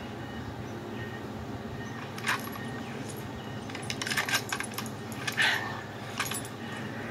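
Sharp metallic clicks and clacks of an M16-style rifle being handled and readied: one about two seconds in, a quick cluster a little past the middle, the loudest soon after and a last one near the end. It is a film soundtrack heard through a TV speaker over a steady low hum.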